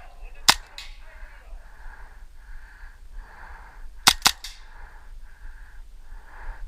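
Airsoft guns firing: a sharp shot about half a second in with a fainter one right after, then a quick burst of three or four shots about four seconds in.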